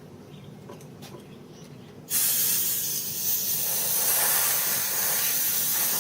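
Compressed-air blow gun hissing in one steady blast, starting suddenly about two seconds in, as air is blown through a part to clear out chips.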